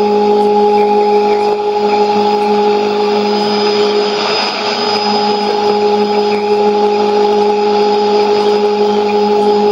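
Shortwave radio receiver tuned to 5990 kHz, playing a steady test tone at several pitches from the Nauen transmitter's test transmission, over a thick hiss of static and interference from a co-channel station.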